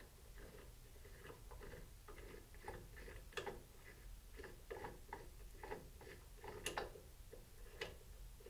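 Ratchet driving an Allen bit on an extension, clicking in short irregular runs as the AR-15's mil-spec pistol grip screw is backed out, with a few sharper metal clicks.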